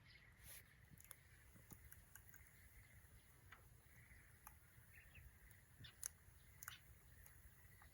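Faint, sparse crackles and pops of a small wood fire burning, with the loudest snap about six seconds in.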